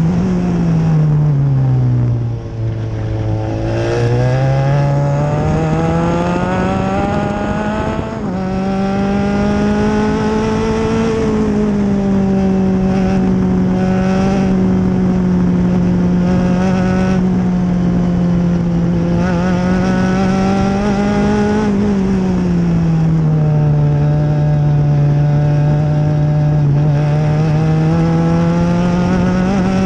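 Open-wheel Formula race car engine heard onboard at racing speed. The revs fall steeply in the first few seconds and climb back, with a sudden step in pitch about eight seconds in. They then hold high, ease down again about two-thirds through and rise once more.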